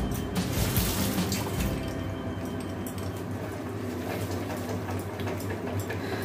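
Wet paneer masala sizzling and bubbling in an aluminium kadai after a splash of water. A wooden spatula stirs and scrapes through it in the second half.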